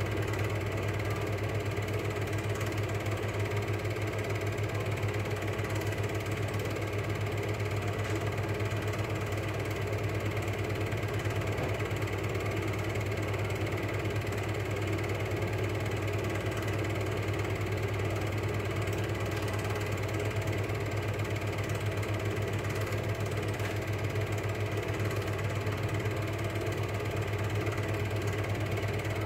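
Cine film projector running: a steady motor whir with a fast, even flutter from the film-advance mechanism, unchanging throughout.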